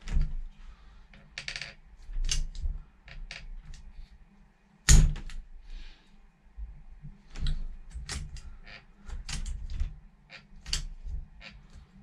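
Irregular clicks and clacks of a caulking gun being squeezed and handled as all-weather adhesive is pushed into the stripped screw holes of a door handle fixing, with the loudest knock about five seconds in.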